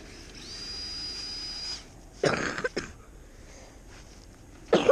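Brushed electric motor of an Axial SCX10 Deadbolt RC crawler whining at a steady high pitch as the truck drives, rising as it starts and stopping after about a second and a half. About two seconds in comes a short, loud cough-like burst, and another loud burst starts near the end.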